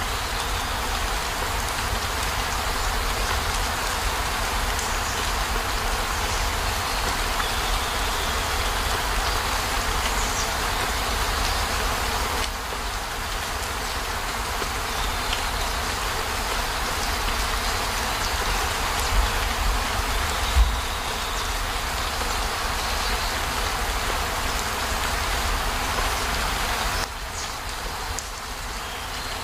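Steady rain, an even hiss over a deep low rumble, with two brief low thumps about two-thirds of the way through.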